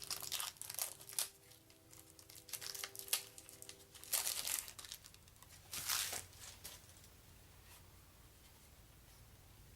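Plastic wrapping being crinkled and torn open by hand, likely the shrink-wrap on a deck of game cards. It comes as a series of rustling, tearing bursts and stops about six seconds in.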